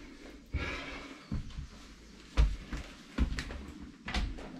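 Footsteps: five dull thumps about a second apart.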